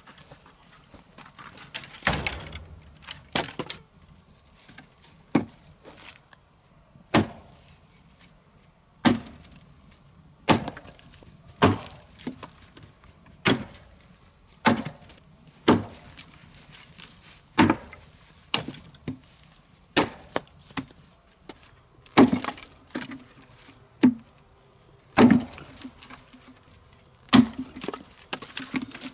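An axe chopping and splitting firewood on a wooden chopping block: a series of sharp wooden strikes, roughly one every second or so.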